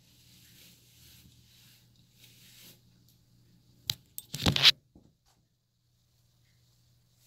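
Faint rustling of hands running through long box braids, then, about four seconds in, a click and a short, loud rustling scrape of handling noise on the phone's microphone.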